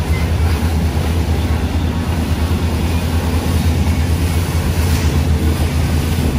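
Motorboat engine running steadily under way, a loud low drone, with water and wind noise rushing over it.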